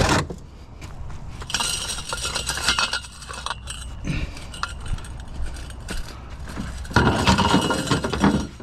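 Metal scrap clinking and rattling as it is handled and loaded, with a louder stretch of clattering near the end.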